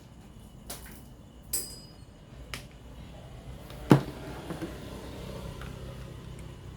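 Four sharp clicks and knocks, the loudest about four seconds in with a short ring after it, followed by a low steady hum.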